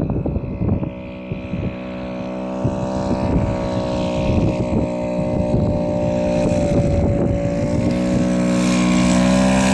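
Sherwood Kub light aircraft's engine and propeller droning at a steady pitch, growing steadily louder as the plane flies in low toward the listener.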